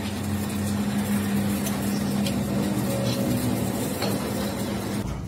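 Steady low mechanical hum of running workshop machinery, with a few faint metallic clicks as a cast axle part is set in a lathe's four-jaw chuck. The hum cuts off abruptly near the end.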